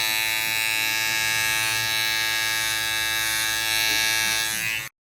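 Barber's electric hair clippers buzzing steadily while lining up a haircut, then cutting off abruptly near the end.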